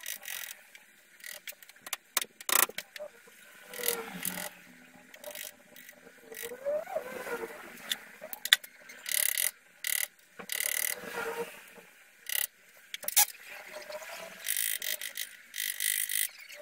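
Metal tools working on a bicycle's bottom bracket during removal of the defective unit: a ratchet clicking in short runs, with sharp metallic knocks in between.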